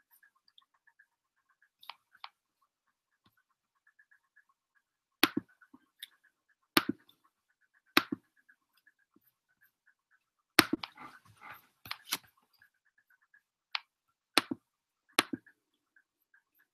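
Sharp, irregular clicks from someone working a laptop, about eight of them spread through the second half, with a short rustle a little past the middle.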